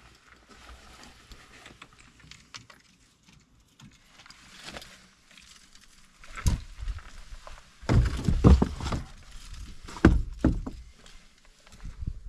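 A quiet stretch, then a series of dull thumps and knocks in the second half, the loudest cluster about eight to nine seconds in.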